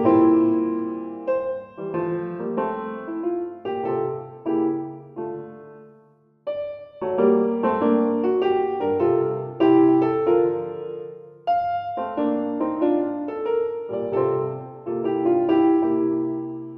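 Background music: piano playing slow chords and melody notes that ring and fade, with a brief pause about six seconds in.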